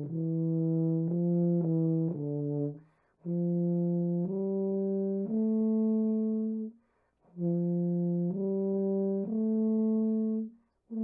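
Wessex Berg F tuba being played: three phrases of held notes stepping up and down in pitch, with short breaks for breath between them.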